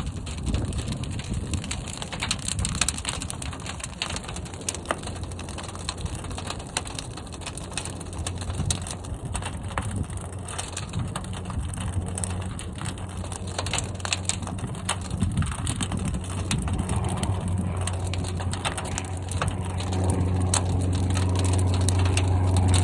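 Fire burning inside a large kiln: dense crackling and popping over a low rumble, which grows into a louder low drone near the end.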